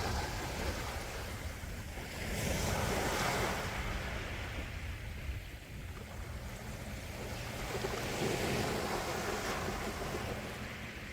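Gentle sea waves washing onto the shore, with a steady low rumble of surf and two swells of rushing water, about two seconds in and again near the end, as waves break and wash up.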